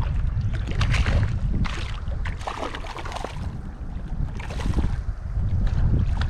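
Wind buffeting the microphone in a steady low rumble, with irregular splashes and sloshes of shallow stream water as a wader's legs push through it, roughly one every second.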